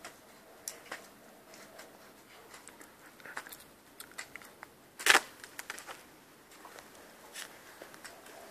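Light crunching and clicking of steps on frost-covered, muddy ground, with one sharp knock about five seconds in.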